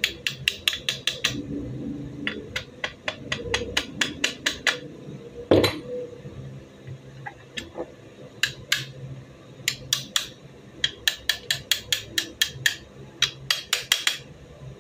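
Rapid light tapping of a tool on the metal parts of a 30 bore MP5-pattern gun, seating a part into place. The taps come in quick runs of several a second with short pauses, and there is one heavier knock about halfway through.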